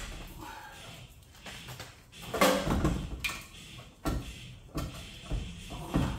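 Irregular metal clunks, knocks and scraping as a truck's transfer case is worked by hand off the back of a 4L80E automatic transmission and tilted down, with the loudest cluster of knocks about two and a half seconds in.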